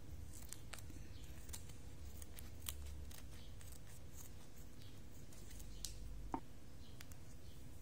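Faint scattered clicks and plastic crinkling from a seasoning-oil sachet and a fork being handled over a ceramic plate of cooked instant noodles, with one sharper, briefly ringing clink about six seconds in. A steady low hum sits underneath.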